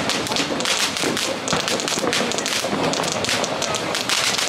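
Ground fountain firework burning: a steady hissing rush of sparks, thick with fine crackling.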